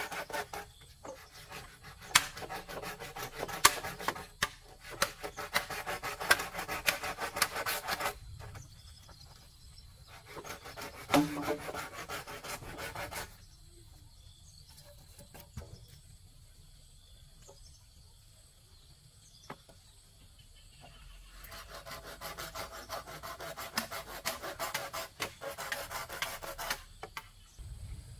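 Wood being cut by hand with a blade. It comes in two spells of dense rubbing strokes with sharp clicks: one runs to about eight seconds in, and one starts about twenty-one seconds in, with a quiet stretch between.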